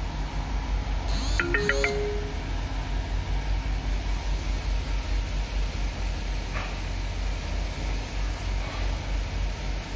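A steady low mechanical rumble, with a short run of chiming notes, like a phone ringtone, about a second and a half in that lasts under a second.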